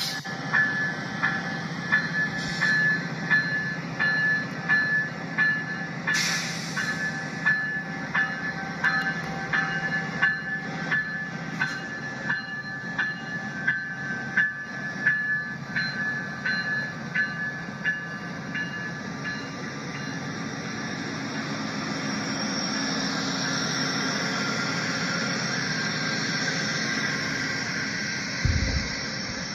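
Motorized LEGO train running past on plastic track. For the first two-thirds, wheels click over the track joints roughly twice a second above a steady motor whine; after that the clicking fades into an even rumble.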